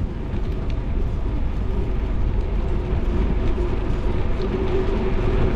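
Steady low rumble of riding a bicycle along a paved bike path: tyre and wind noise, with a faint steady hum that grows stronger in the second half.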